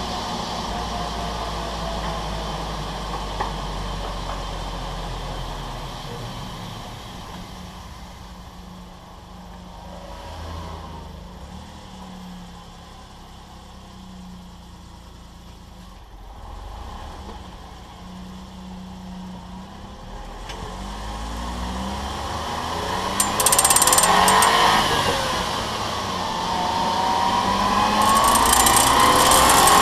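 Suzuki Jimny JA22W driveline running, with pitched tones that rise and fall with shaft speed and a harsh metallic noise. This is the abnormal noise the owner traces to the propeller shaft joint. It is quieter in the middle and grows loud again in the latter part, peaking twice.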